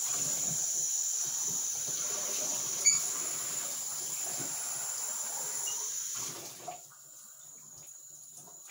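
Water running from a bathtub tap, a steady hiss that cuts off about six seconds in as the tap is shut. A single sharp knock about three seconds in.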